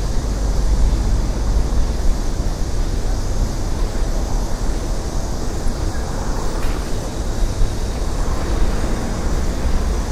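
Steady low rumble of vehicles in a busy city, with no single sound standing out.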